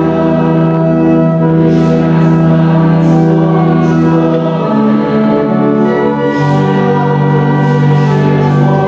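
Church organ accompanying voices singing a hymn in long held chords, which change about halfway through and again near the two-thirds mark.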